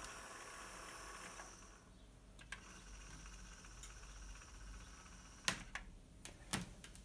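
Faint hiss that drops away about two seconds in, then several sharp clicks about five and a half to seven seconds in as the Tandberg TCD 330 cassette deck's transport keys are pressed by hand.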